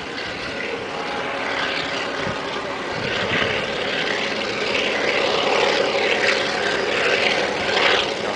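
A long coal freight train passing in the distance: a steady drone and rumble from the locomotive and wagons, growing a little louder toward the end.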